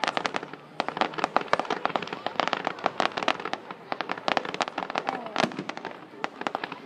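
Fireworks going off: a dense, continuous run of sharp cracks and pops, many a second.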